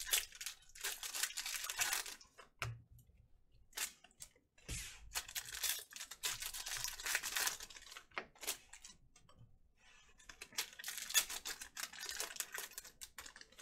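Trading-card pack wrappers being handled and torn open by hand: plastic crinkling and ripping in irregular short bursts, with small clicks in between.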